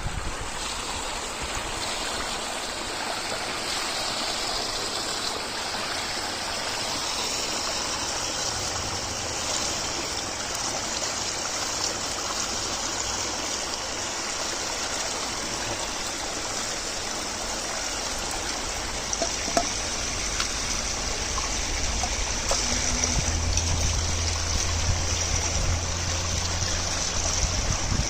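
Steady running water of a mountain spring. A low hum joins in for a few seconds near the end.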